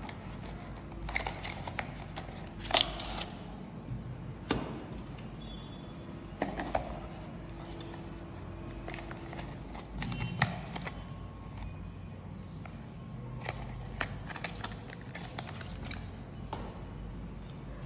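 Cardboard box and plastic mouse being handled as the mouse is slid out of its packaging: scattered light clicks, taps and rustles of paperboard. The sharpest taps come about three seconds in and about ten seconds in.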